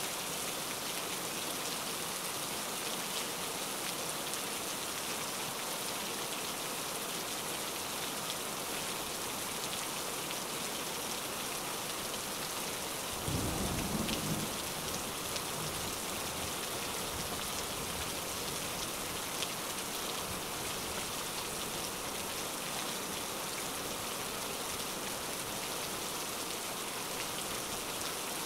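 Steady rain falling, a played-back rain-and-thunder ambience, with a brief low rumble about halfway through.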